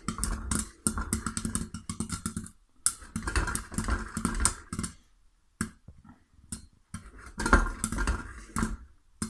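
Popcorn popping inside a lidded stainless-steel pot on a gas hob, the heat just turned off: rapid, dense pops in spells that thin out for a couple of seconds past the middle, then pick up again.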